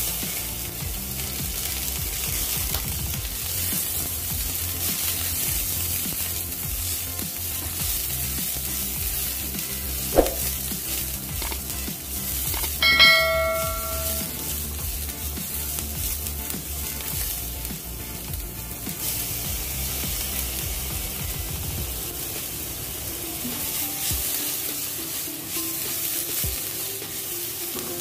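Chopped onion and garlic sizzling in hot oil in a nonstick frying pan, stirred with a spatula. A short bell-like chime sounds about halfway through.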